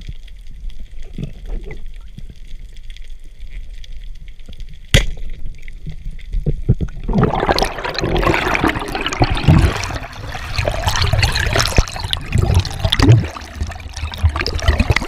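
Underwater sound through a GoPro housing: a single sharp crack about five seconds in, fitting a speargun being fired, then from about seven seconds a loud rush of bubbles and churning water as the diver heads for the surface.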